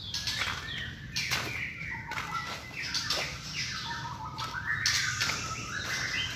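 A caged songbird singing a busy run of varied whistled notes and chirps, broken by short fluttering sounds.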